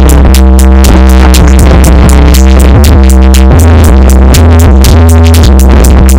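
Loud electronic music instrumental: a drum-machine beat with fast, even hi-hat-like clicks over a heavy, sustained bass and held synth chords.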